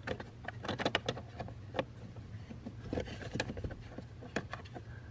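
Scattered small plastic clicks and taps as the heater box's flap lever on a VW Jetta MK6 is handled and pushed back into place, over a faint steady low hum.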